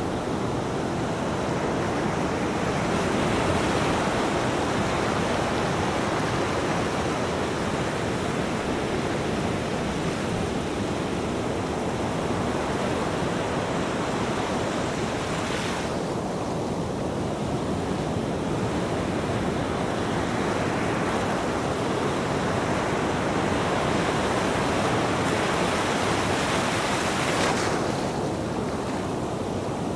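Ocean waves breaking on a beach: a steady rushing wash of surf, with a fresh wave breaking about halfway through and another near the end.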